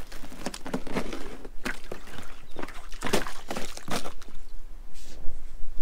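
A boot breaking up slushy ice in a plastic water tub: a run of irregular crunching strokes.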